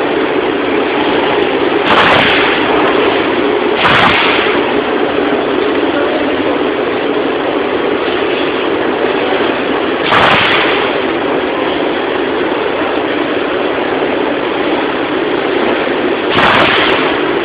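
Industrial metal-cutting band saw machine running: a loud, steady mechanical noise, broken four times by short, sharp bursts of hissing noise, near the start, about four seconds in, about ten seconds in and near the end.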